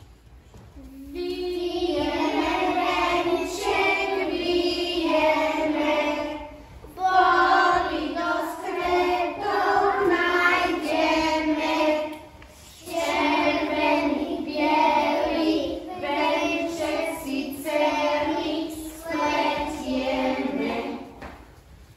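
A group of young children singing a song together in unison, in several phrases with short breaks between them.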